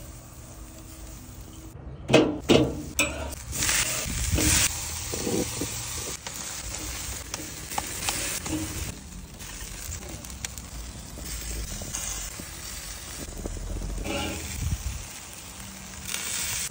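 Beef burger patties sizzling on a grill grate, a steady hiss that swells and eases. A few sharp knocks come about two seconds in.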